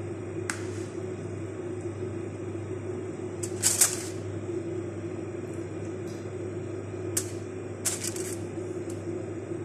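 Aluminium foil crinkling and metal tongs scraping in short bursts as marinated chicken pieces are laid onto a foil-lined grill tray, the loudest at about four seconds in and two more near the end, over a steady low hum.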